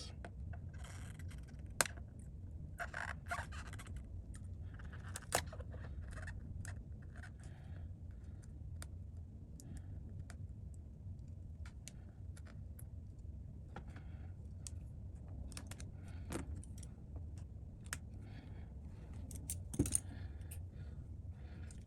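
Small hand repair tools clicking and scraping on a cracked iPad's glass and frame: scattered light clicks and short scrapes over a steady low hum.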